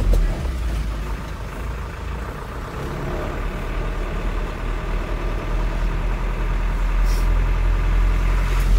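Truck engine running at low speed, a steady low rumble with tyre noise on wet road, growing a little louder over the second half. A brief hiss about seven seconds in.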